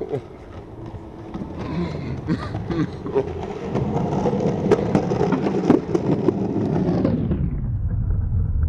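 Skateboard wheels rolling on concrete pavement, with a steady rumble and sharp clicks over the joints, growing louder over several seconds. Near the end the sound turns dull and muffled.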